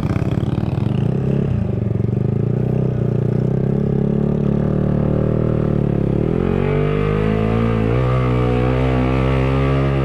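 Motorcycle engine pulling hard up a steep hill under load. Its note drops and climbs again about six seconds in, and dips briefly near eight seconds.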